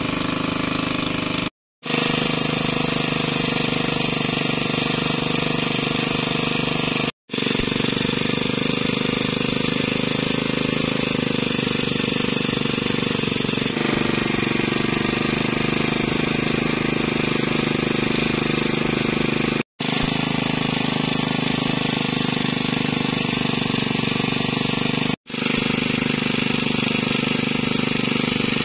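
Fishing boat's engine running steadily at a constant speed, broken by four brief gaps of silence.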